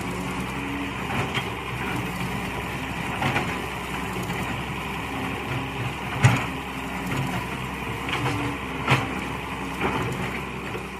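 Mini excavator's engine running steadily, with a few sharp metallic clanks from the working machine, the loudest about six seconds in and another near nine seconds in.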